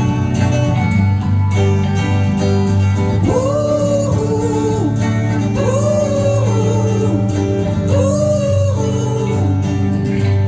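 Live band playing an instrumental passage: sustained guitar and bass chords under a lead melody that swells up and glides down, three times over.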